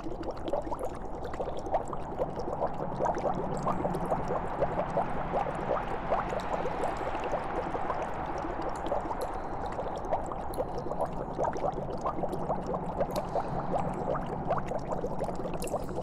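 Liquid bubbling continuously, a dense steady stream of small pops and gurgles over a low steady hum.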